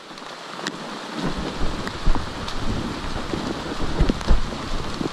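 Steady hiss of rain falling on the forest foliage, with a few sharp ticks of drops. From about a second in, irregular low thumps on the microphone come in under the hiss.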